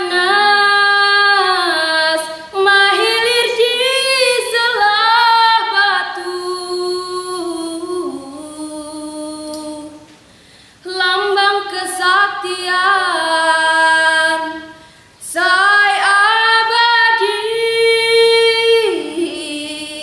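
A young woman singing a Lampung regional song solo and unaccompanied, in long held, ornamented notes. The voice breaks off briefly about halfway, then goes into a second long phrase.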